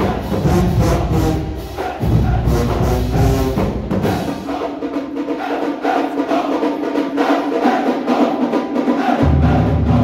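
Marching band playing: sustained brass chords over steady percussion strokes. The deep bass drops out about four seconds in and comes back in near the end.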